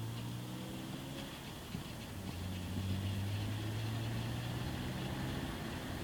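Mitsubishi Eclipse running with a steady low drone from the front of the car that shifts slightly in pitch a few times. This is the unidentified noise the owner is asking about.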